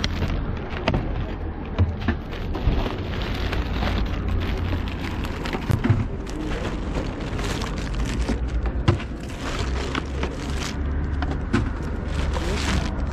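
Thin plastic carrier bag rustling and crinkling close to the microphone, in quick irregular crackles, with a steady low rumble underneath.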